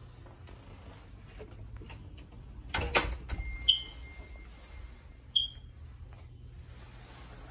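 A clunk about three seconds in, then two short high electronic beeps about a second and a half apart, with a faint steady tone between them.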